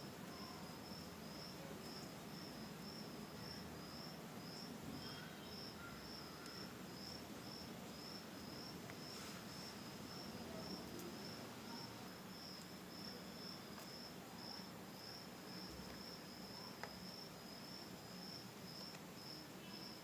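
Faint, regular chirping of a cricket, a little over two chirps a second, steady throughout over quiet room tone.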